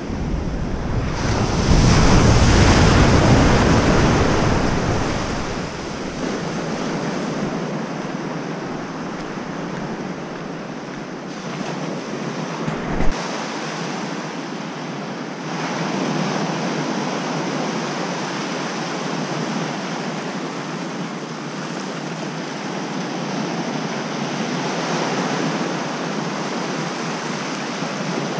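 Surf breaking and washing up the beach, with wind buffeting the microphone; the loudest surge comes about two seconds in. A single short knock sounds about halfway through.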